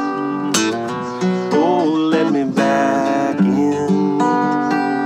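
Steel-string acoustic guitar strummed and picked, with chords ringing on and a short note that slides up and back down near the middle.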